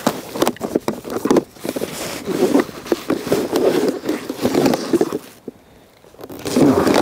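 Irregular rustling, scraping and clicking from handling a plastic fly box and gloves and clothing moving against a chest-worn clip-on microphone, with a short lull about five and a half seconds in.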